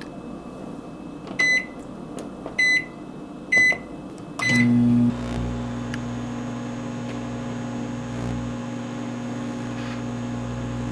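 Microwave oven being set and started: four short keypad beeps, then about four and a half seconds in the oven starts and runs with a steady hum.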